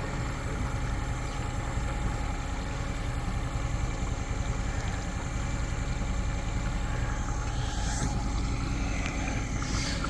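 Yamaha F30 three-cylinder four-stroke outboard idling steadily just after starting, firing on fresh spark plugs.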